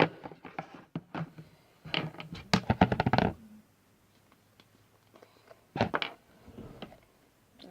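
Plastic glue bottle being squeezed and handled over a mixing bowl to get the last of the glue out: a run of rapid clicks and knocks about two seconds in, and a shorter cluster about six seconds in.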